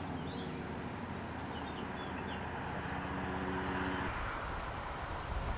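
A steady low motor hum with a few faint, short high bird chirps over it. About four seconds in it gives way to wind rumbling on the microphone.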